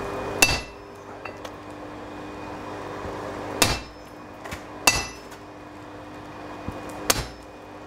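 Hand hammer striking a red-hot steel crossguard bar laid over a hardy in a blacksmith's anvil, slitting a slot through it: four hard, unevenly spaced blows, each with a short metallic ring.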